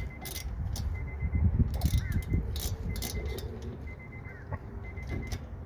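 Wrench working a brake caliper bolt: irregular metallic clicks and clinks of the tool on the bolt, over a low rumble.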